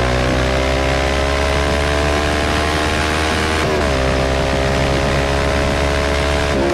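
Motorcycle engine pulling under acceleration, its note climbing slowly. Briefly, about three and a half seconds in, the pitch dips and then climbs again, as at a gear change.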